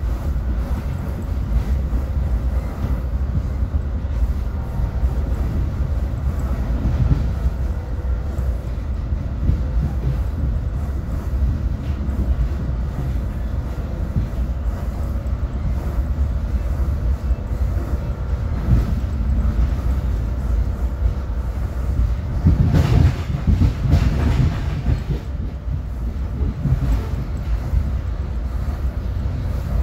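Metra Heritage Corridor commuter train heard from inside a passenger car at speed: a steady low rumble of the wheels on the rails. A louder stretch of rattle lasts a couple of seconds about two-thirds of the way through.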